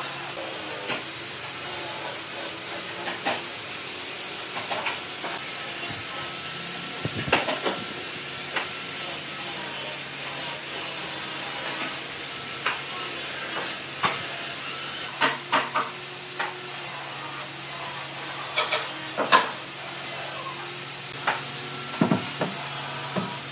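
Steady workshop hiss with a low hum underneath, broken by scattered light taps and knocks of wood being handled as glue is run along a pine frame and a board is set into it.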